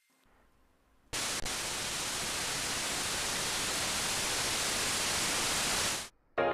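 Steady static-like hiss, even across all pitches, switching on abruptly about a second in and cutting off suddenly after about five seconds, in the manner of a TV-static sound effect.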